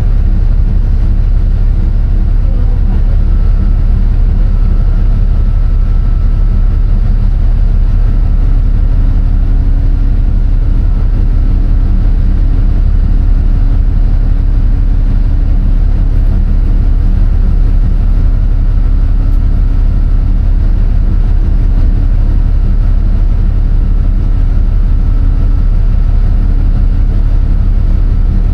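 A running engine's steady, loud low drone, with a faint hum above it that drops slightly in pitch about eight seconds in.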